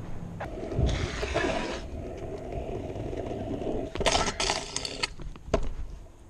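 Rubbing, clatter and sharp knocks from a stunt scooter and its handlebar-mounted GoPro being handled and ridden, with a burst of rustling about a second in and a cluster of knocks around four seconds in.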